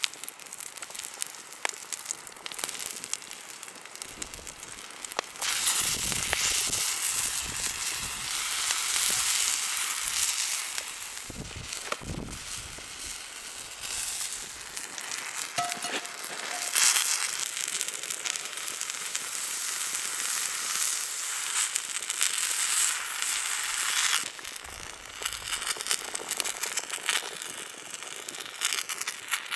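Pancake batter sizzling in a frying pan over an open wood fire, with small crackles and pops from the fire. The sizzle grows louder a few seconds in and eases off again near the end.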